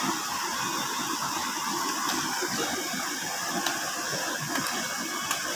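Mountain stream running over rocks into a pool: a steady rush of water.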